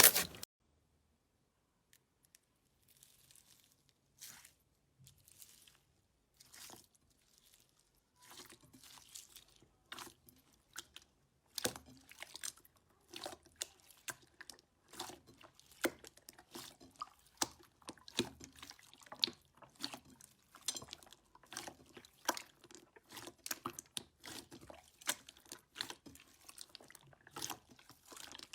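Slime being pressed and worked by hand, giving irregular sticky crackling and popping clicks. The clicks are sparse and faint at first and grow dense from about eight seconds in.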